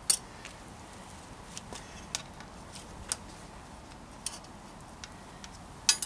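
Small, sharp metal clicks and taps, about ten at irregular intervals, as a Suntour front derailleur is handled and adjusted on a steel bike frame. The loudest click comes right at the start and another near the end.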